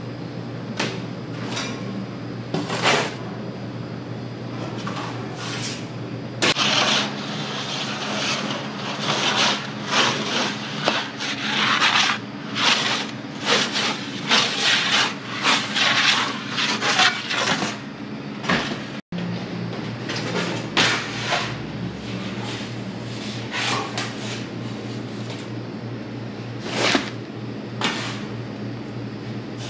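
Repeated scraping and clattering of a metal pizza peel and pizza screen on a deck oven's stone floor, over a steady low machine hum.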